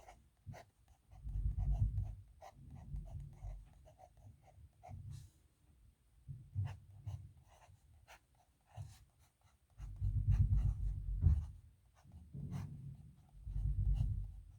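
Nib pen scratching across paper in groups of slow handwriting strokes, with small clicks and taps between them.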